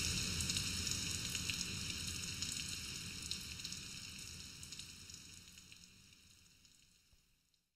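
Rain sound effect at the end of a song: a steady hiss of falling rain with small crackling drops, fading out gradually and gone about seven seconds in.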